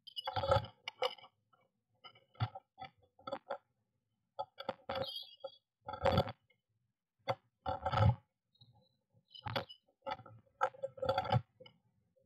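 Blue tit scrabbling and knocking against the wooden nest box as it lands at and squeezes through the entrance hole: a string of irregular thumps and scratches of claws and wings on wood.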